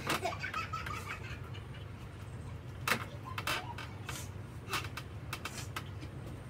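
Spoon clicking and scraping against an ice cream tub, a handful of short sharp clicks spread through, over a steady low hum.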